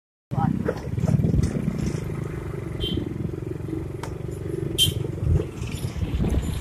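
Motorcycle engine running steadily while riding, heard from the back seat, with a few sharp clicks.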